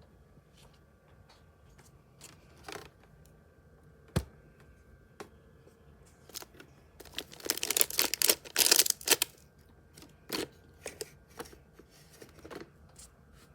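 Handling noises: scattered light clicks and taps, a single low knock about four seconds in, and about two seconds of dense scratchy crinkling from about seven seconds in.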